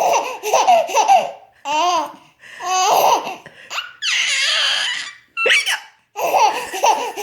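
High-pitched laughter in repeated bursts of about a second with short breaks, with a longer breathy stretch about four seconds in.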